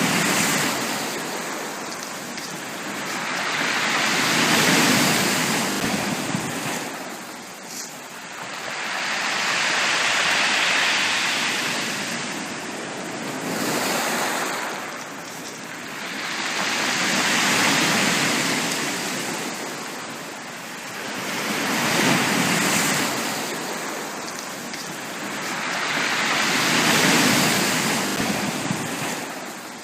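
Sea waves washing onto a beach, the surf noise swelling and fading in slow surges about every four to six seconds.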